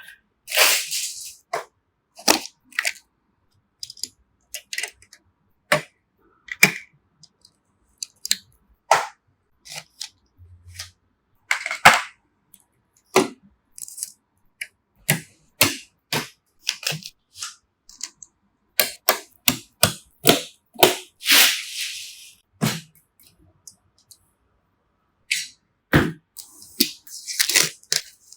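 Irregular sharp clicks, snaps and knocks of computer parts being handled and fitted together. There are a few short rustling swishes, the longest about 21 seconds in.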